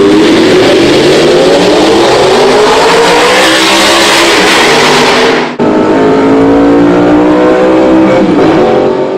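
Audi R8's 4.2-litre V8 with a tuned exhaust accelerating hard, its pitch rising steadily for about five seconds. After an abrupt cut it runs again under load, and its pitch drops near the end.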